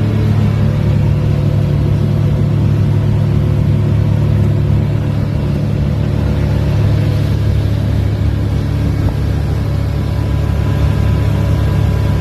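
Motorboat engine running steadily while the boat is underway: a loud, even low drone with rushing noise over it.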